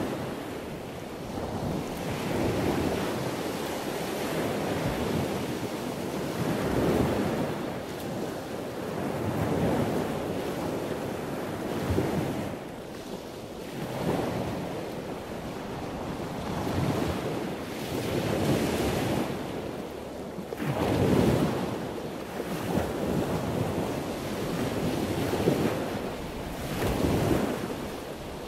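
Wind buffeting the microphone over choppy open water, a rushing noise that swells and fades every second or two.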